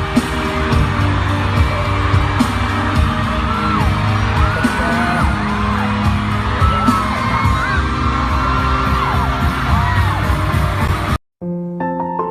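Loud, busy music that cuts off suddenly about eleven seconds in. After a brief gap, piano notes begin.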